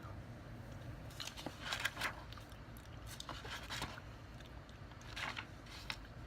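A person chewing blueberries with the mouth close to the microphone: wet, irregular chewing noises in a few short bursts, about a second, three seconds and five seconds in.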